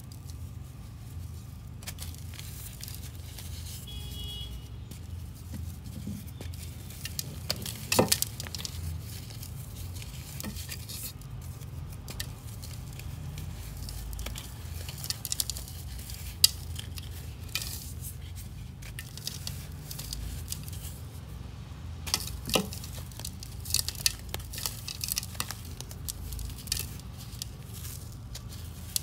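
Fingers crushing and crumbling powdery heart-shaped sandy blocks: continuous gritty crunching and crackling as grains and chunks fall, with a few sharper snaps as pieces break. A steady low hum runs underneath.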